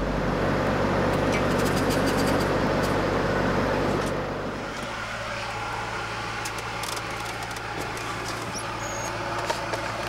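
Semi truck's diesel engine idling steadily. It is louder and noisier for the first four and a half seconds, then drops to a quieter, steadier hum. A few light clicks and knocks come in the second half.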